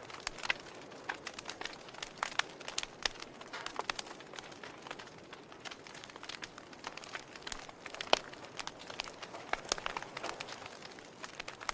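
A fire crackling: irregular sharp pops and snaps, several a second, over a soft steady hiss. The loudest pop comes about eight seconds in.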